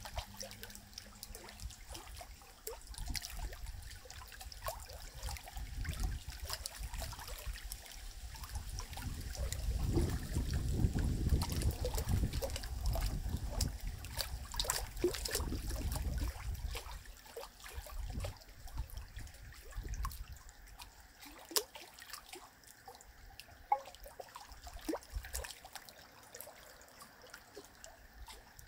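River water trickling, with many scattered small clicks and splashes. A low rumble swells about a third of the way in and fades again after the middle.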